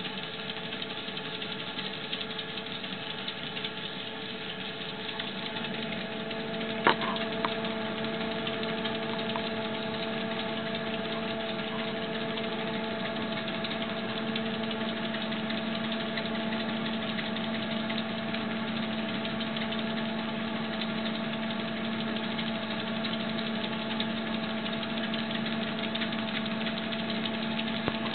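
Treadmill motor and belt running steadily, a hum of several steady tones over an even rushing noise. There is a sharp click about seven seconds in, and the tones change slightly around then.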